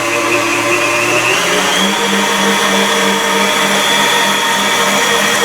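Electric mixer motor running steadily while whisking cheesecake batter, stepping up to a higher speed about a second and a half in.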